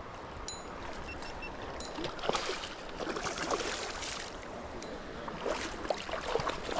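River water running steadily, with small irregular splashes.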